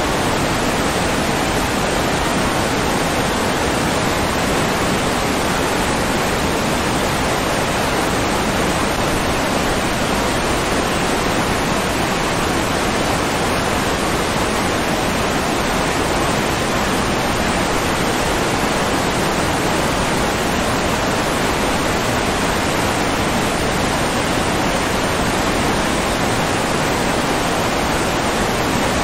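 Steady rushing water like a waterfall: an even, unbroken hiss that does not change.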